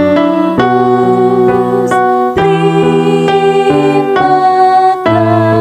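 Electric keyboard playing a worship song accompaniment, with sustained chords changing about every half second to second.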